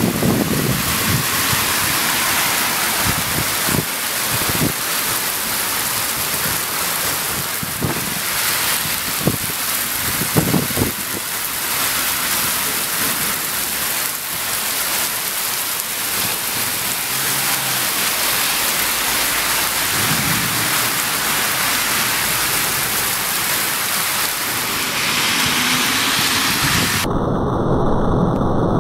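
Heavy thunderstorm downpour: rain pouring onto the road in a dense, steady hiss, with low rumbles of thunder a few times in the first half.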